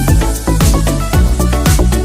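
Electronic dance background music with a steady beat.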